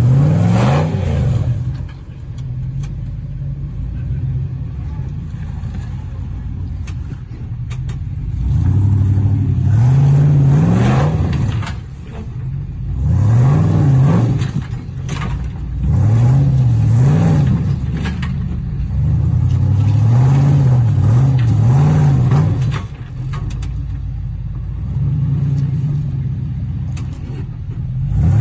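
Jeep Wrangler engine revving in repeated surges, its pitch climbing and falling again several times, as the Jeep works under load up a steep rock ledge.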